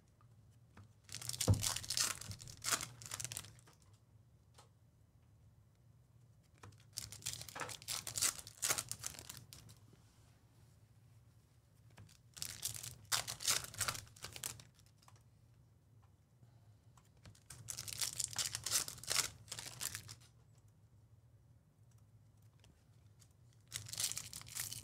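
Foil wrappers of Topps Chrome baseball card packs crinkling and being torn open, in about five bursts a few seconds apart.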